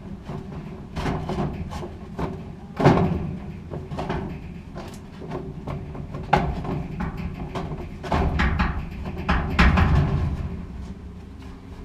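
Irregular knocks, clicks and clatter of dryer parts being handled and fitted by hand: a new blower wheel and drive motor being mounted inside a GE gas dryer. The loudest knocks come about three seconds in and again near ten seconds.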